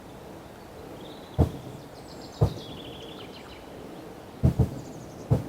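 Birds singing in short trills and chirps, with five dull knocks at uneven intervals, two of them close together, over steady outdoor background noise. The knocks are the loudest sounds.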